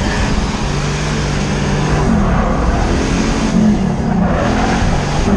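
Car engine running hard with its revs rising and falling, over a loud steady rush of wind and tyre noise.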